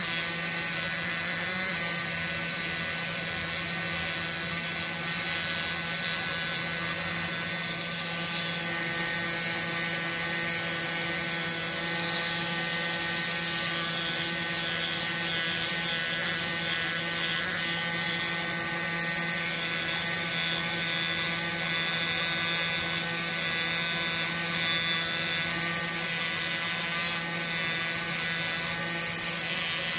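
Pneumatic air scribe (air pen) buzzing steadily as its stylus chips rock matrix away from around an ammonite, with a hiss of air over the buzz.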